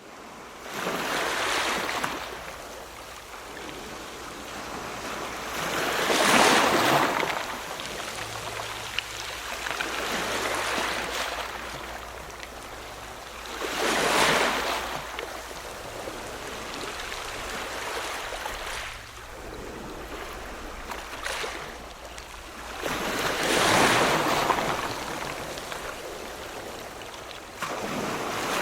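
Ocean waves breaking and washing in, swelling up every five to ten seconds over a steady hiss of surf.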